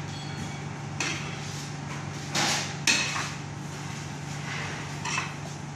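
A few clanks and scrapes of stainless-steel kitchen pans as cooked food is scooped out of a tilting braising pan into a steel hotel pan. The loudest pair comes about two and a half to three seconds in, over a steady low hum.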